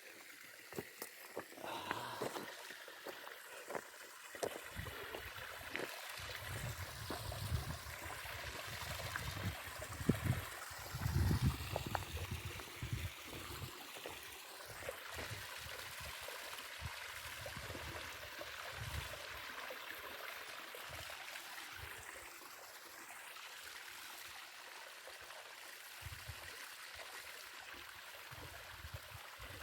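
Stream water running and trickling steadily, with some low rumbles in the middle.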